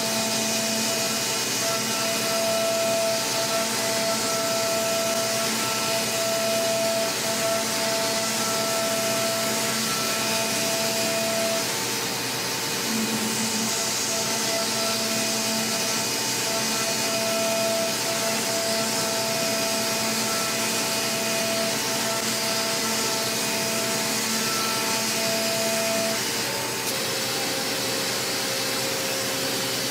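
A 5-axis CNC machine milling aluminium at high speed: a steady whine from the spindle and cutter over a hiss. The whine drops out briefly about 12 seconds in and shifts to a different pitch a few seconds before the end.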